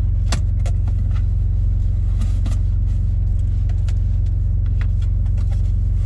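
A steady low engine hum, heard inside a semi-truck's cab, with scattered clicks and scrapes from a cardboard box being cut open and its flaps handled.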